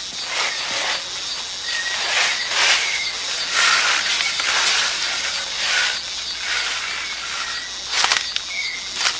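Branches and leaves rustling and shaking in irregular rasping bursts, over a steady high insect trill with a few short chirps.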